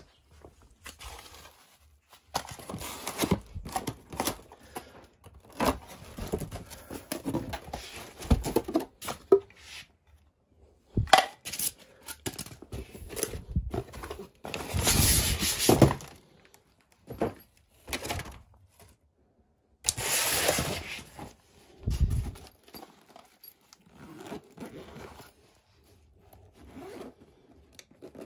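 A cardboard shipping box being opened and unpacked by hand: cardboard and packing tearing, flaps scraping and thumping, and a nylon carry bag rustling as it is lifted out, in irregular bursts with two longer, louder stretches around the middle and about two-thirds through.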